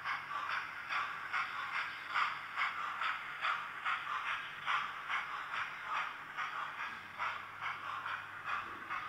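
Hornby OO-gauge model of the LNER A3 'Flying Scotsman' running with its TTS sound decoder playing steam-locomotive chuffs through the small onboard speaker: an even beat of about three to four chuffs a second, thin and trebly, over a faint low hum.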